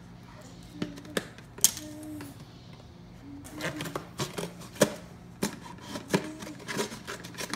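Kitchen shears snipping and crunching through a cardboard coconut-water carton: a few separate sharp clicks at first, then a dense run of snips and crackling carton from about halfway through.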